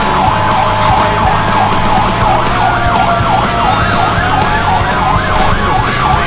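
Emergency vehicle siren sounding a fast yelp, heard from inside the vehicle's cab over the engine hum. About halfway through, a second, steadier siren tone slowly rises in pitch alongside it.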